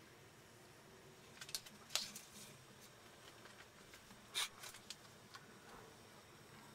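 Quiet room tone broken by a few scattered sharp clicks and taps: a cluster about two seconds in and another strong click about four and a half seconds in.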